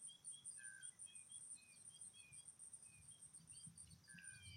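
Faint field ambience: a high, steadily pulsing insect trill with small birds giving short, repeated chirps.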